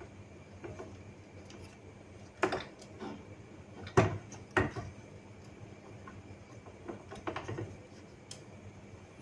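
Plastic clicks and knocks from hands fitting a new belt onto the print carriage of a Canon G3060 ink tank printer. The loudest knocks come about two and a half and four seconds in, with a few lighter clicks later.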